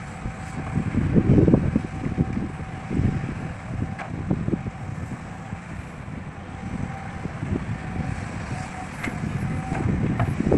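Heavy diesel machinery running with an uneven low rumble, with wind buffeting the microphone in gusts.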